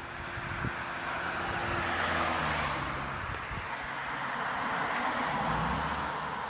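Two cars passing on the road one after the other, their tyre noise and engine hum swelling and fading; the second is a silver coupe going by close near the end.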